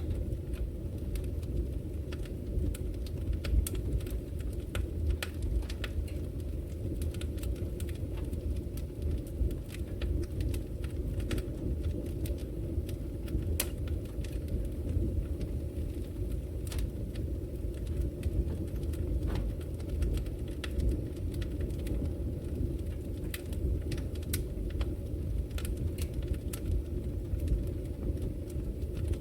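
Wood logs burning in a fireplace: a steady low rumble of the fire with frequent irregular sharp crackles and pops.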